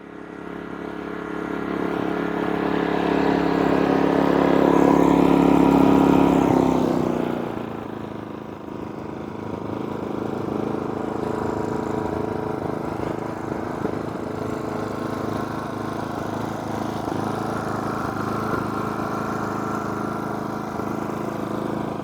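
GENMAX GM3500Xi inverter generator's 145cc four-stroke OHV engine running, getting louder over the first six seconds, then dropping to a lower, steady level about seven seconds in.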